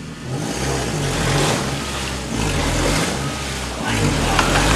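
Suzuki Grand Vitara SUV's engine revving hard in repeated rising and falling surges while the vehicle struggles for grip in a flooded, muddy forest rut, with water churning around the wheels.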